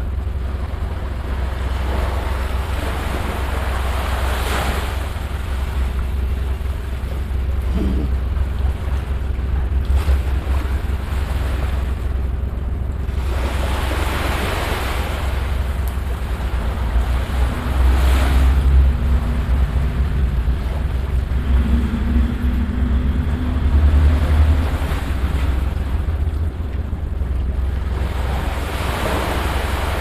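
Small sea waves breaking and washing up a sandy shore, each wash swelling and fading, over a heavy, fluttering low rumble of wind on the microphone.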